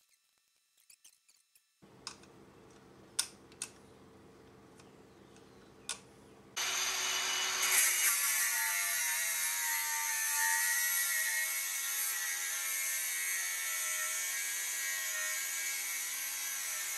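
Cordless angle grinder grinding metal on a jet-ski engine block, starting about six and a half seconds in and running steadily under load with a whine on top. Before it there is a faint hum with a few light clicks.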